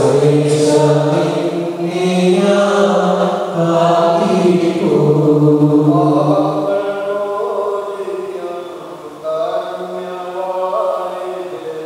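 A man's voice chanting a sung liturgical prayer in long held notes, getting quieter in the last few seconds.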